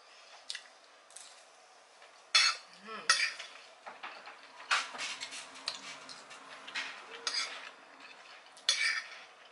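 Metal spoon scraping and clinking against a plate as rice and vegetables are scooped up: a series of short sharp scrapes, busiest in the middle.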